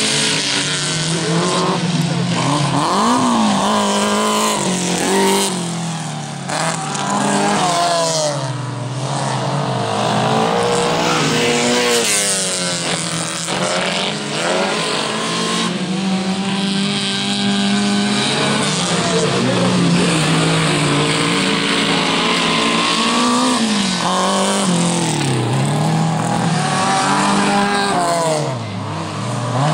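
Several 2000cc stock car cross race cars running hard around a dirt track, their engines revving up and down over one another as they accelerate and lift off. There are runs of quick rising sweeps through the gears and occasional tyre squeal.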